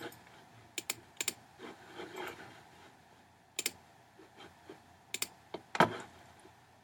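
Quiet clicks of a computer mouse, several in quick pairs as the button goes down and up, scattered through the stretch, with the loudest near the end.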